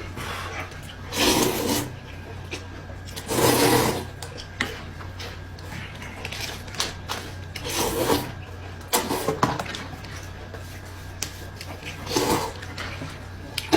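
A person eating noisily: about five short noisy bursts of chewing or slurping with small clicks between them, over a steady low electrical hum.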